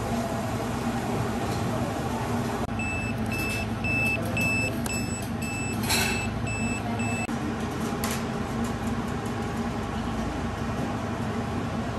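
Restaurant call pager beeping, a high electronic tone repeating about twice a second for some four and a half seconds, signalling that the order is ready. A single sharp click comes partway through, over a steady hum.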